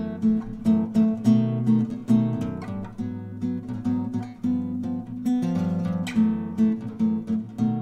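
Acoustic guitar music: plucked notes at a steady pace, about three a second.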